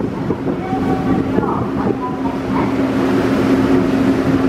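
Ferry's engines running with a steady hum, under the rush of its wake water and wind.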